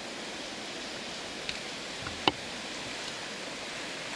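Blizzard wind blowing in a steady, even rush of noise. A few faint ticks come in the first half, and one sharp click about two seconds in.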